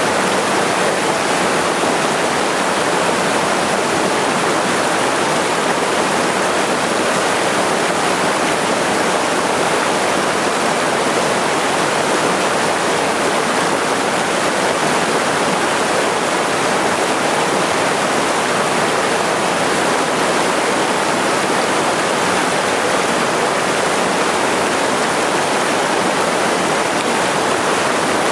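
A small waterfall on a mountain headwater stream pouring into a rock pool: a steady, even rush of water.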